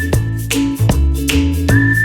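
Background music with a steady beat, held bass notes and a long high whistle-like melody tone.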